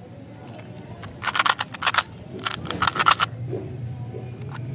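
Hard little candies rattling and clicking inside a clear plastic flip-top dispenser box as it is handled, in two short bursts about a second apart.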